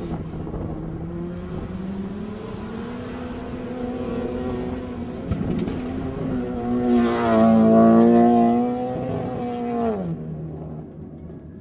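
Subaru Impreza WRX STI rally car's turbocharged boxer flat-four running high in the revs as the car drifts, tyres sliding. The engine note climbs slowly and is loudest about three-quarters of the way through, then the revs drop sharply near the end.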